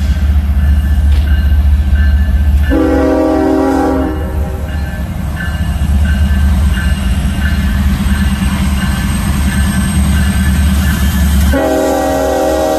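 Union Pacific GE Evolution-series (GEVO) diesel locomotive passing close with a heavy low engine rumble, sounding its chord air horn: one blast of about two seconds a little under three seconds in, and another starting near the end.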